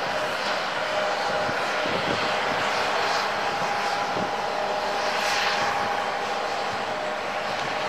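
Airbus A350-900's Rolls-Royce Trent XWB turbofan engines running at low taxi thrust as the airliner rolls slowly. It is a steady jet whine over a broad rush of air, holding an even level.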